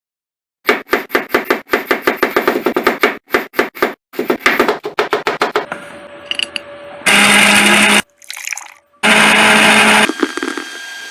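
Kitchen cooking sounds in quick cuts: a knife chopping fast on a board, about four strokes a second. Then come two loud, steady, hissing stretches of about a second each, such as frying or a mixer grinder, each starting and stopping abruptly.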